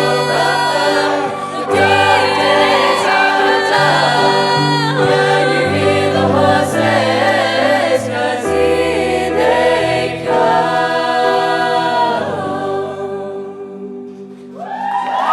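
Choir singing the closing bars of a pop song over sustained chords, the music thinning out and fading away in the last few seconds. Just before the end a new rising burst of voices cuts in.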